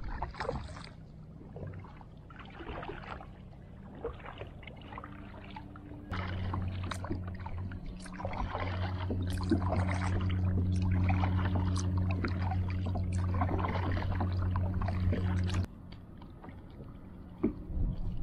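Kayak paddle strokes dipping and splashing in the water. For about ten seconds in the middle a steady low hum runs underneath, starting and stopping abruptly.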